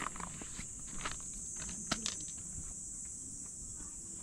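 Steady high-pitched chorus of insects, with a few scattered clicks and light scuffs in the first couple of seconds.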